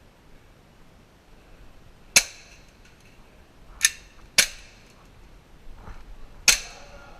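Four single airsoft gun shots, sharp cracks spaced irregularly over a few seconds.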